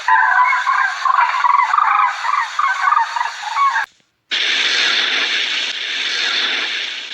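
Domestic fowl calling: a dense run of short honking calls for about four seconds, then after a brief break a steady, dense noise.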